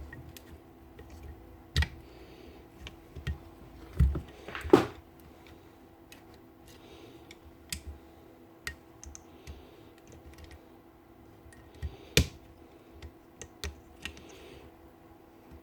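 Scattered clicks, taps and light knocks of hand tools and the plastic housing of a Makita BO5031 random orbit sander being handled and opened to get at its carbon brushes, with a short scrape about four and a half seconds in and a sharp knock about twelve seconds in.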